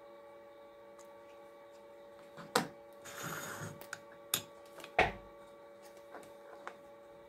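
Small metal parts and a little machine vise being handled on a workbench: a few sharp metallic clicks, a short scraping rattle, and a heavier knock about five seconds in as the vise is set down. A steady mains-type hum sits underneath.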